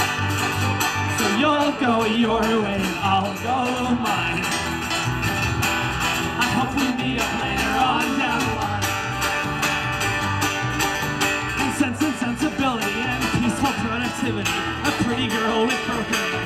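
Live music from a small band: guitars played over a steady low pulse, with a wavering melody line on top.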